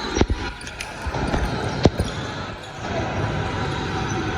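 A basketball bouncing on a gym floor: a quick pair of sharp bounces near the start and a louder single one a little under two seconds in, over the steady background noise of a large hall with some indistinct voices.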